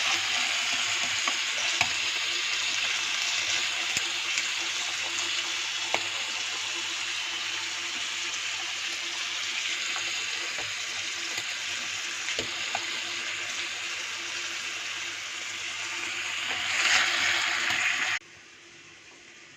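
Pork rashers sizzling on a barbecue: a steady hiss with scattered pops and crackles. It swells louder briefly, then cuts off suddenly near the end.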